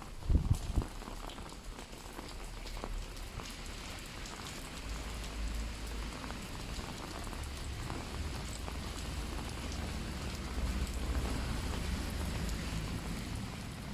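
Rain falling steadily on an umbrella overhead, with a few loud low thuds about half a second in and a low rumble underneath from about five seconds on.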